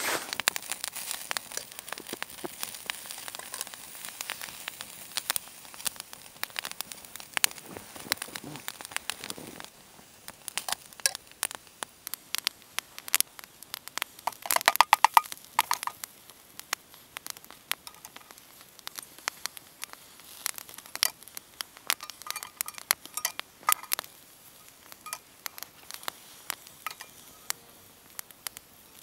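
Wood fire crackling in a small box camp stove, an irregular run of sharp pops and snaps. About halfway through comes a louder flurry of pops with a brief ringing metal clink.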